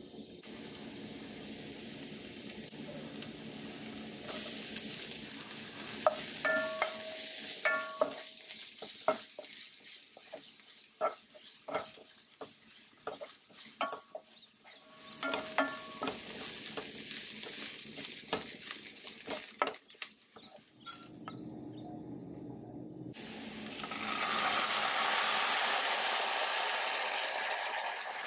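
Minced garlic sizzling in hot oil in a stone-coated frying pan, with a wooden spatula clicking and scraping against the pan as it is stirred; some taps ring briefly. Near the end the sizzle turns louder and fuller as dark sauce is poured into the hot pan.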